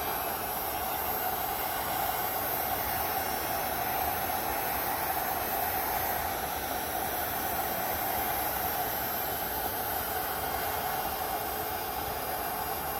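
Electric heat gun running steadily on its high setting, its fan blowing a constant hiss of hot air as it heats the kayak's plastic hull so a patch will fuse to it.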